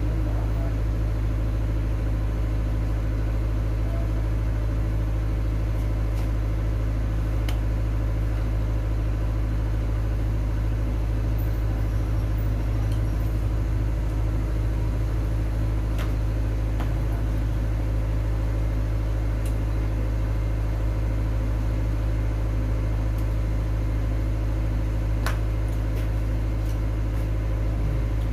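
A steady, loud low-pitched hum with even overtones, unchanging throughout, with a few faint clicks.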